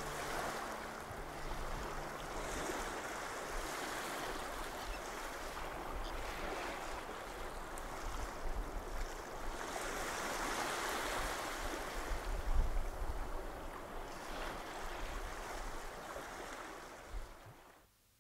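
Sea waves washing on a shore, swelling and falling back, with a louder surge about two-thirds of the way through, then fading out near the end.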